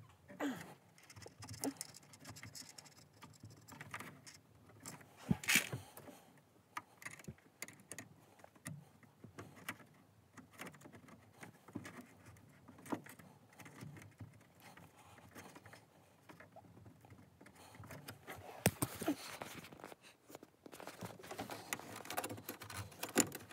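Hands working speaker wire into a car's rear deck trim: scattered clicks, taps and rustles of wire and plastic, with a longer stretch of rustling handling near the end.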